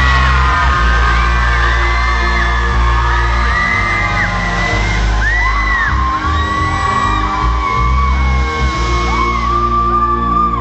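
Live pop music played loud through a hall's sound system, with a steady heavy bass line, while the audience screams and whoops over it again and again.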